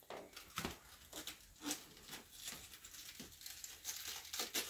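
Soft, irregular rustling and small clicks of food and utensils being handled in a kitchen.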